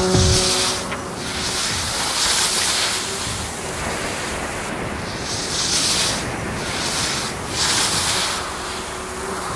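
Skis hissing and scraping on steep snow through a series of turns, the sound swelling with each turn.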